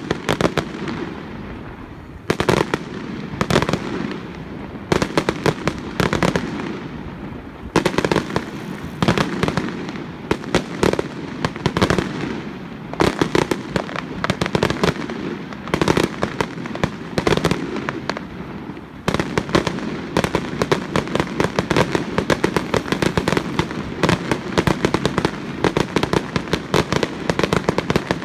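Aerial fireworks bursting: sharp bangs with booming, rumbling tails, coming in clusters with brief lulls. After about two-thirds of the way through, the bursts run together into a dense, rapid barrage of bangs and crackle.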